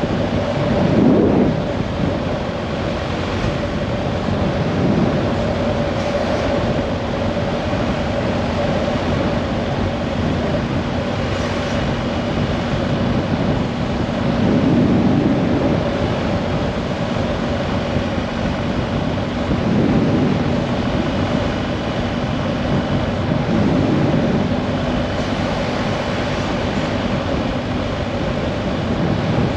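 A steady engine drone with a constant hum under a rushing noise that swells and fades every few seconds.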